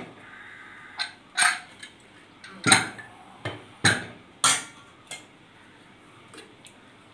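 Pressure cooker lid lifted off and set down, then a metal ladle stirring in the pot: a handful of sharp metal clanks and knocks spaced about a second apart.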